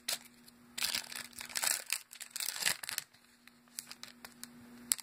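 Foil trading-card pack wrapper crinkling as it is handled and opened, in irregular bursts through the first two seconds or so, then a few short crackles as the card is slid out.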